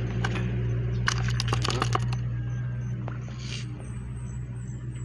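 Live fish flapping in a plastic basin: a quick run of sharp slaps and clicks about a second in, with a few single taps later, over a steady low hum.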